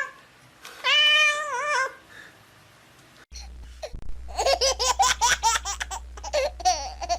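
A cat gives one long, drawn-out meow. About three seconds later a low hum comes in under rapid, high-pitched laughter.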